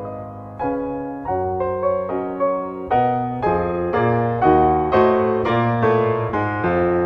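Solo piano music, chords and melody notes struck one after another, growing louder about three seconds in.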